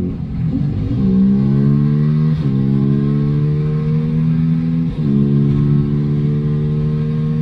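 Beta RR 125 LC single-cylinder four-stroke engine, run without its exhaust dB killer, accelerating through the gears. The revs climb steadily and drop at upshifts about one, two and a half and five seconds in.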